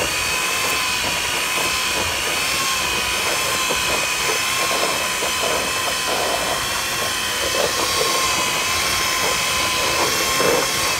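Electric stand mixer running steadily, beating a sugar glaze in a glass bowl: a constant motor whine that wavers slightly in pitch, over the whirr of the beater.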